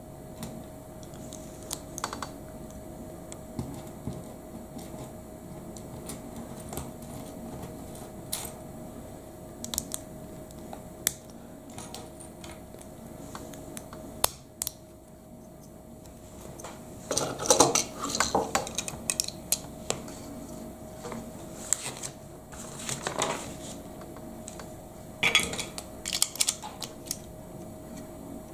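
Plastic LEGO bricks being handled and pressed together on a wooden table: scattered sharp clicks, with busier bursts of clatter about two-thirds of the way in and again near the end.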